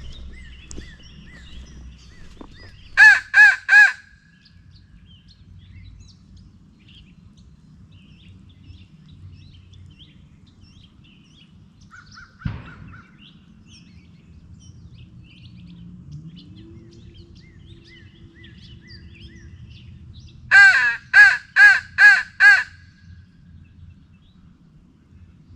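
Crow locator call blown by hand in two series: three loud caws about three seconds in, then five more near the end. It is used to make a turkey gobbler shock-gobble. A single sharp knock comes a little past the middle.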